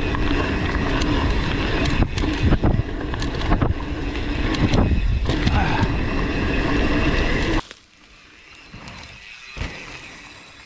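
Mountain bike ridden fast down a dirt forest trail, heard from the rider's chest camera: loud tyre rumble on the dirt, with rattles and knocks from the bike over bumps. Most of the way through it cuts off abruptly to a much quieter stretch with a single thud.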